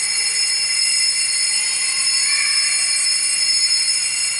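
Small altar bells ringing during Mass: a bright, sustained jingle of several high tones that starts suddenly and rings steadily for about five seconds.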